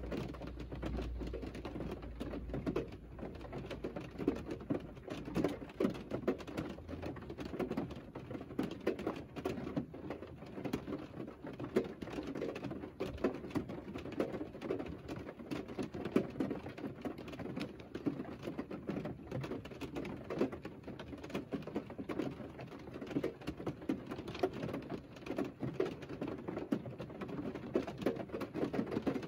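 Rain falling on the roof and windscreen of a parked Mercedes, heard from inside the cabin. The drops make a dense, irregular patter at a steady level.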